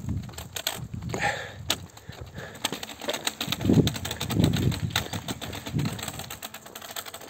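Footsteps of a hiker in trail-running shoes walking on an asphalt road, heard as quick irregular clicks and scuffs. A few low muffled thumps come in the middle.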